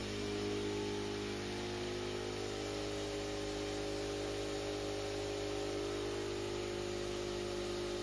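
A steady low mechanical hum made of several even tones, holding level and unchanging throughout.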